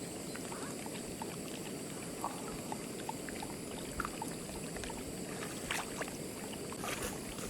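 Small waves lapping at a lake shore, a steady low wash with a few faint clicks.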